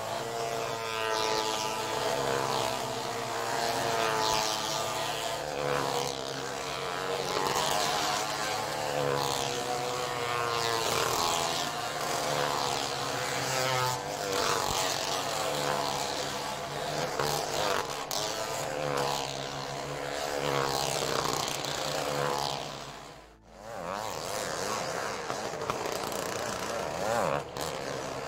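Motorcycle and car engines revving as they circle a well-of-death (wall-of-death) ride, several engines overlapping with their pitch rising and falling in continual waves. The sound drops out briefly about three-quarters of the way through.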